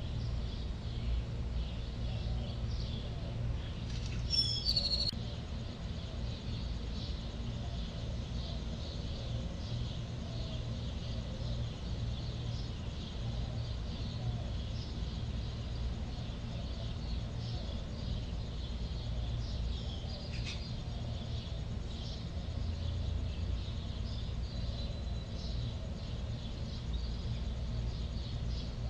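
Ambient nature-sound bed: a steady low rumble with faint high chirping throughout, and one brighter short chirping call about four seconds in.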